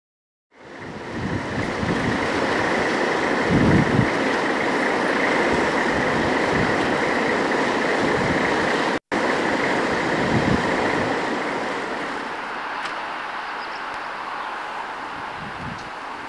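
Steady railway yard noise with a few low thumps, starting half a second in, cutting out for an instant about nine seconds in, and easing off a little after twelve seconds.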